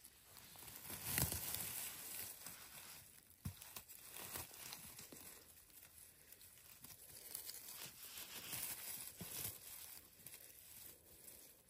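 Irregular rustling and crackling of a person moving through forest undergrowth, with a few soft knocks along the way.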